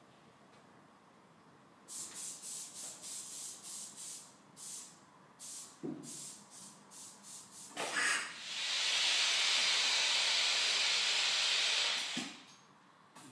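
Compressed-air hiss from a pneumatic vacuum gripper: a run of short hisses, about two a second, as the lift is worked to set the carboy down, then one loud steady hiss lasting about four seconds as the vacuum is released from the suction pads. A soft thump comes near the end as the pads let go.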